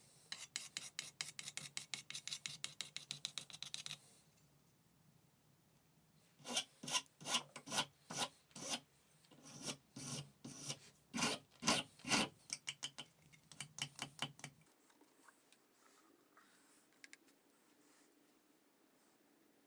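Hand abrading strokes: a quick run of back-and-forth rubbing strokes, about five or six a second, then after a short pause a louder, slower run of about two strokes a second that stops about three-quarters of the way in.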